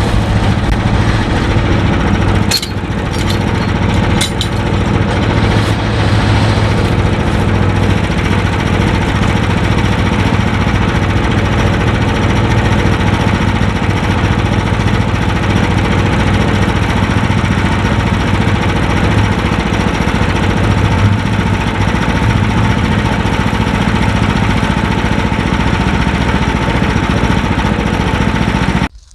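Sawmill engine running steadily at a constant pitch, with a few sharp clicks about two and a half and four seconds in; it cuts off abruptly near the end.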